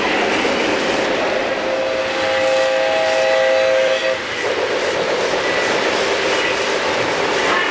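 O-gauge three-rail model trains running past, their wheels and motors making a steady rushing rumble on the track. From about two seconds in, a locomotive's onboard sound system gives one steady multi-note blast that lasts about two and a half seconds and then stops.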